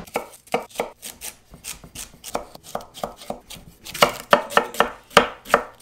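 Chef's knife chopping celery and then an onion on a wooden cutting board: a steady run of knife strikes against the wood, about four a second, louder and quicker near the end.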